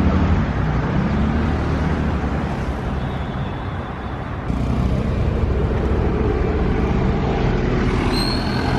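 Road traffic: cars running by with a steady low engine rumble. The sound jumps up in level about halfway through.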